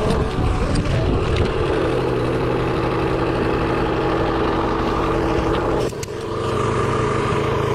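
A small engine running steadily. It dips briefly about six seconds in, then picks up again.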